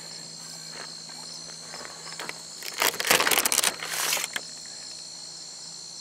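Crickets chirping steadily. A short, louder handling noise comes about three seconds in, and another just after four seconds.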